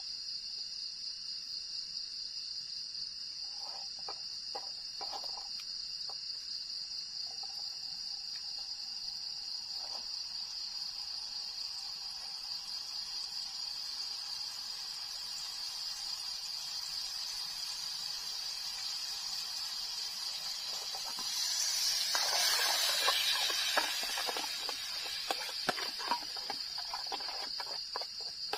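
Night insects chirring steadily in a high, even drone. About three-quarters through there is a brief louder rush of noise, followed by light clicks of a utensil against a metal pan.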